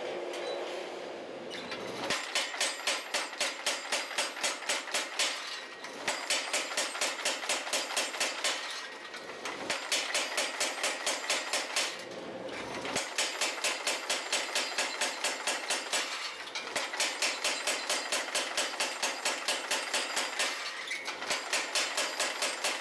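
The forge runs steadily for about two seconds. Then a power hammer strikes a white-hot billet in six quick runs of about four blows a second, with short pauses between runs. This is a forge-welding pass, setting a sanmai weld of wrought iron around a 1084 steel core.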